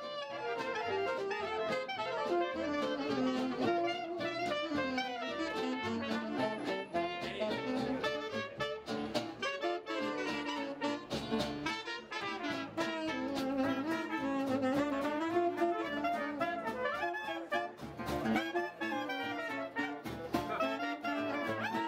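Jazz music: horns play a wandering melody over a steady beat.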